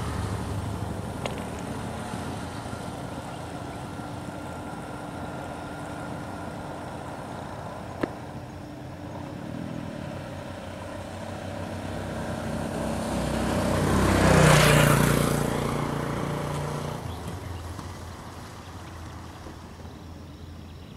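A motor vehicle passing by: its engine and road noise grow steadily louder to a peak about three-quarters of the way through, then fade away. A single sharp click about eight seconds in.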